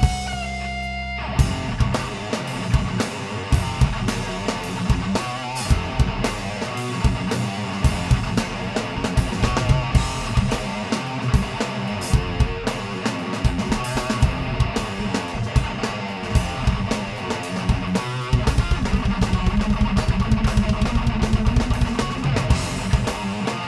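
Live rock band: electric guitar played on a white Les Paul-style guitar, with a drum kit. A held note opens, the drums and full band come in about a second in, and the bottom end gets heavier near the end.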